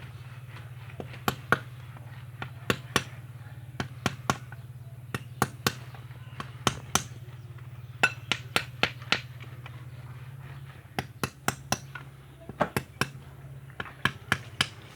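Hand hammer striking repeatedly into a wall, sharp blows coming singly or in quick runs of two or three, about two dozen in all, over a steady low hum that drops away about eleven seconds in.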